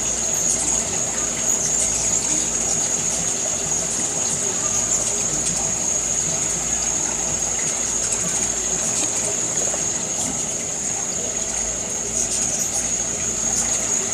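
Steady outdoor ambience: an even, water-like hiss with a continuous high-pitched whine running through it.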